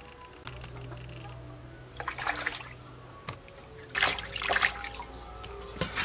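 Water splashing and trickling as raw shrimp are rinsed in a plastic basket, with two louder splashes about two and four seconds in.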